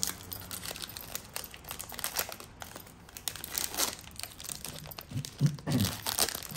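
Foil wrapper of a Panini Prizm trading-card pack crinkling and crackling as it is torn and peeled open by hand, in a quick run of irregular crinkles.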